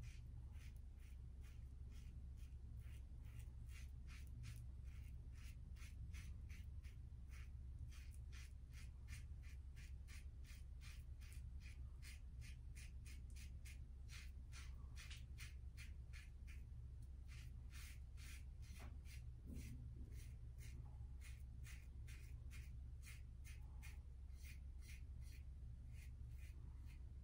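Aylsworth safety razor scraping through stubble under lather in short strokes, about three a second, over a steady low hum.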